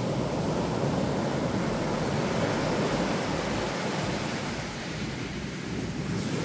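Surf washing onto a sandy beach, a steady rush of breaking waves with some wind, easing slightly about five seconds in.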